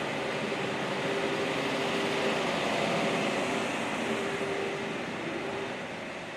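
Steady mechanical noise with a hum that comes and goes, easing off slightly near the end.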